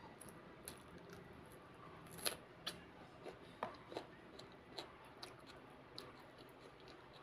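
Fingers squishing and mixing rice with chicken gravy on a paper plate: soft, scattered wet clicks and squelches, a few louder ones between about two and five seconds in.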